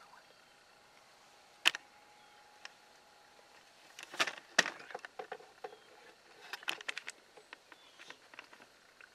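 Scattered clicks, knocks and rustles of people and gear moving inside a hunting ground blind, including a camera being repositioned against the blind's mesh window. One sharp click comes about two seconds in, with busier clusters around the middle and later.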